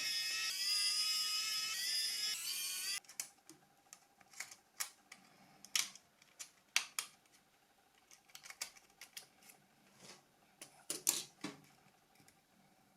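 Background music that cuts off about three seconds in, followed by scattered small clicks and taps of plastic parts as a Nokia 5510 phone is taken apart by hand.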